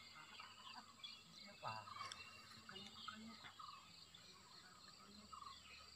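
Near silence: faint forest ambience with a steady high insect drone, a few faint bird chirps, and faint distant voices.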